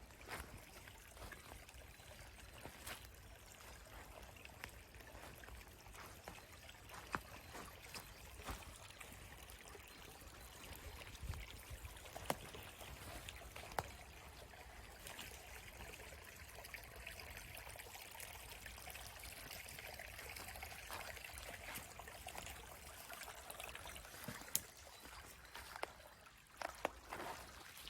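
Faint trickle of a small forest brook, a steady babbling, with a few sharp clicks now and then.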